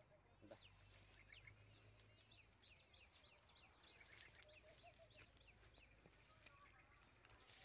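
Near silence with faint bird chirping: a run of quick, high, falling chirps through the first half or so.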